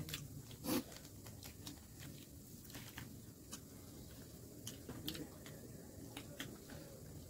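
Close-up eating sounds: a scattering of short, irregular mouth clicks and smacks from chewing chicken biryani, with one louder smack just under a second in.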